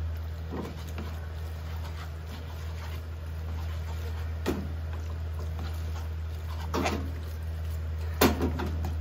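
Tongs knocking and scraping against a frying pan as spaghetti is tossed in sauce: a few sharp clicks, the loudest near the end, over a steady low hum.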